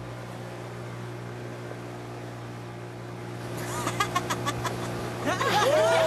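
Motorboat engine running with a steady low drone. From about three and a half seconds in, a quick run of clicks and then high squeaky calls that rise and fall join it, growing louder near the end.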